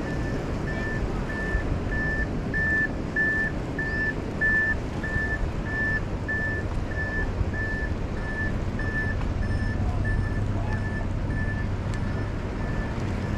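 A vehicle's reversing alarm beeping steadily, about two beeps a second, over a low rumble.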